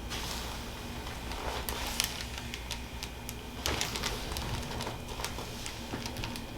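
Scattered soft clicks and rustles of a person shifting and being handled on a chiropractic treatment table, over a steady low hum.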